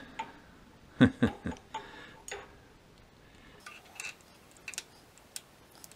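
Small metal parts clicking and knocking as a steel flange is slid over the milling machine's knee crank shaft and seated against the housing. A quick run of three knocks comes about a second in, then scattered light clicks.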